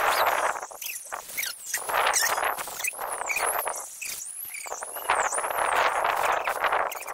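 Gusty wind blowing across the microphone in swells, with a kite flapping in it. Over this, a high squeak rises and falls over and over, about twice a second.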